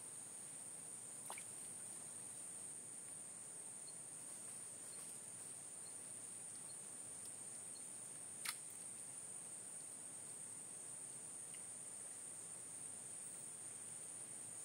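Insects chirring in a steady high-pitched drone, with a faint click about a second in and one sharp click about eight and a half seconds in.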